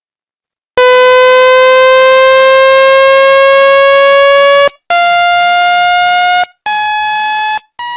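Synthetic sawtooth-wave chirp generated in Audacity: a loud, buzzy tone starts about a second in and glides slowly upward in pitch for about four seconds. It is followed by three shorter steady buzzy tones, each a step higher in pitch and quieter than the one before.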